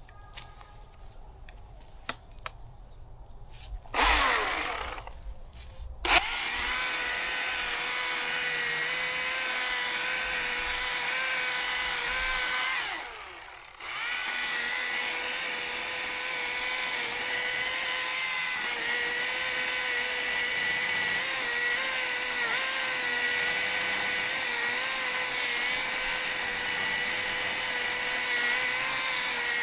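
Chainsaw cutting into a tree trunk, holding a steady pitch. A brief loud burst comes about four seconds in, the saw settles into steady running about six seconds in, and it drops away for a moment near the middle before picking up again.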